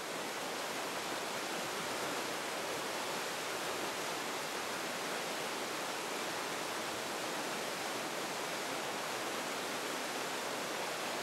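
Fast-flowing river water rushing over rapids: a steady, even wash of water noise.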